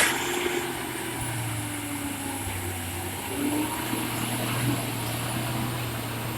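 Heavy earthmoving machinery's diesel engine running steadily under load, with a faint whine that rises and falls in pitch.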